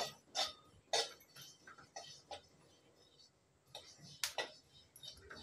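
A metal spatula stirring dry-roasted sesame seeds in a steel kadhai: a few light, scattered clinks and taps of metal on metal, the clearest about a second in and again a little past four seconds.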